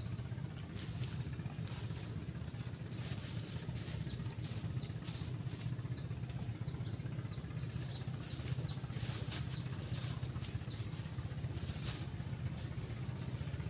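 Small birds chirping in quick short notes, over a steady low rumble. A plastic bag crinkles now and then as it is handled.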